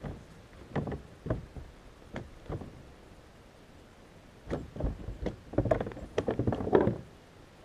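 Knocks and clatter of gear and paddle handling against a kayak hull: a few scattered clicks at first, then a busier run of knocks and rattles in the last few seconds.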